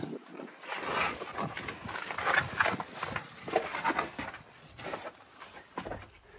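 Footsteps and scuffing on steep brick stairs: a string of irregular knocks and scrapes, busiest in the first few seconds.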